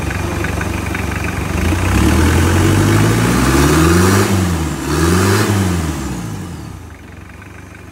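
Bare engine hoisted on a chain hoist, running on its own and revved twice: the pitch climbs and falls back in two rises, about two and five seconds in, then settles to a quieter idle near the end.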